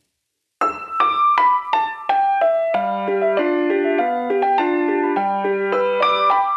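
Background music on a piano-like keyboard: after a brief silence, a run of single notes steps downward, then lower chords and a bass line come in a little before halfway and the tune carries on in a steady rhythm.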